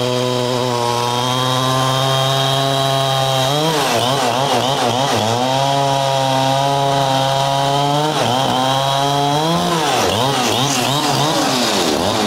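Chainsaw running at speed, its pitch sagging and wavering about four seconds in and again from about eight seconds on as it cuts into wood.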